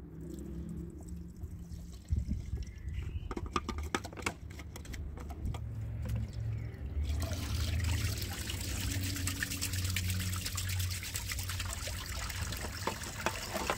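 Water running and splashing, starting suddenly about halfway through, after a few scattered clicks and knocks.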